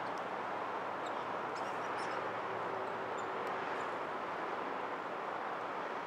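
Steady outdoor background roar, typical of distant traffic, with a few faint high bird chirps in the first half.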